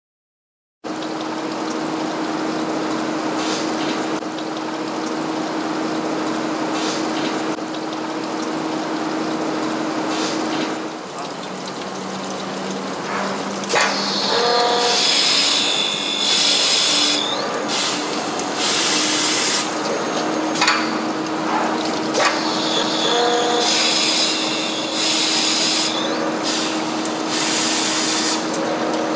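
CNC glass drilling machine running, its spindle humming steadily over a hiss of coolant water. About halfway in, loud high-pitched hissing bursts of a second or two begin and keep recurring as the drill works the glass.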